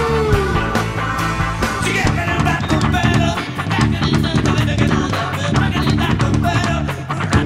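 Band music: a rock-style song with guitar and a steady drum beat.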